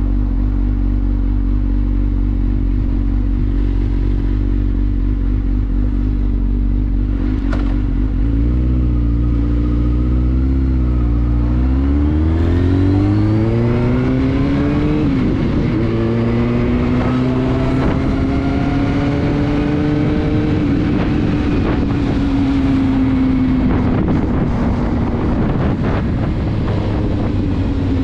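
Motorcycle engine heard from the rider's seat, running low and steady, then revving up with a rising pitch about twelve seconds in, dipping briefly and climbing again, then holding steady as the bike cruises and easing off near the end.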